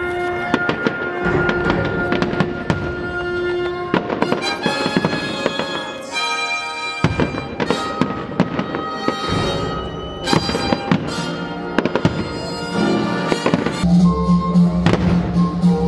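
Fireworks display: repeated aerial shell bursts and crackling bangs throughout, over accompanying music with long held notes that grows stronger near the end.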